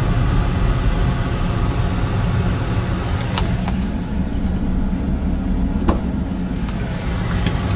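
Car engine and road noise heard from inside a moving car: a steady low rumble, with a few light clicks.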